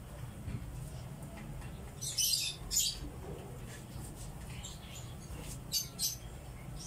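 Thread being pulled through a sneaker sole during hand stitching: short squeaky rasps, two close together about two seconds in and two more near the end, over a low steady hum.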